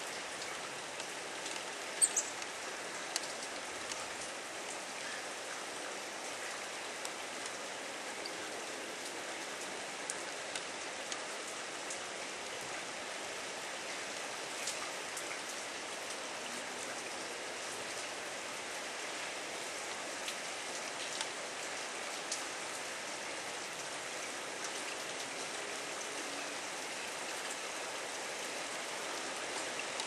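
Steady rain falling: an even hiss with scattered drip ticks, the sharpest about two seconds in.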